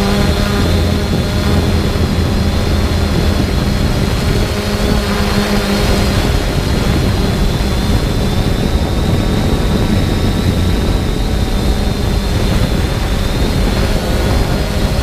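3DR Solo quadcopter's electric motors and propellers running steadily in flight, heard up close from the camera carried on the drone: a constant whirring with a steady high whine over a low hum. The low hum shifts in pitch about six seconds in.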